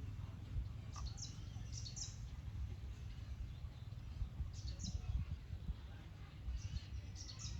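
Small birds chirping in short high bursts, in a few clusters, over a steady low rumble.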